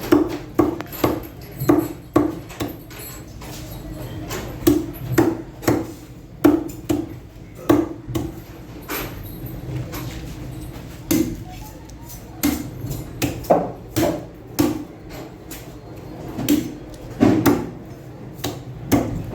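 Knife or cleaver chopping fish on a wooden cutting block: a run of sharp, irregular knocks, often one or two a second, in groups with short pauses between.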